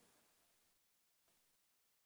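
Near silence: the sound drops out to dead quiet, with only a very faint hiss in the first part and once more briefly past the middle.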